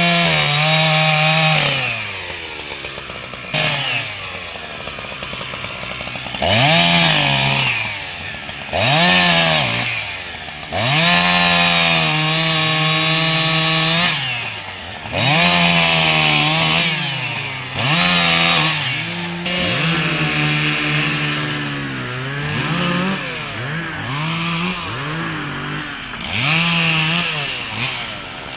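Husqvarna two-stroke chainsaw cutting rounds off a felled tree trunk, revving up to full throttle and holding there for each cut, then dropping back toward idle, over and over.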